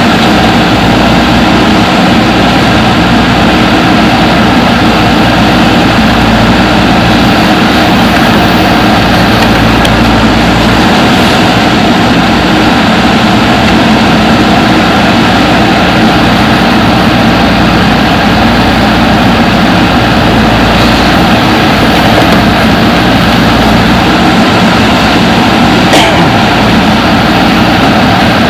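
Diesel engine of a JCB 3DX backhoe loader running steadily at an even speed, loud throughout.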